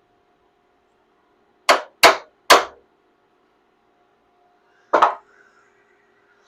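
Metal struck against metal: three sharp clangs in quick succession, then a fourth about two and a half seconds later, each with a short ring.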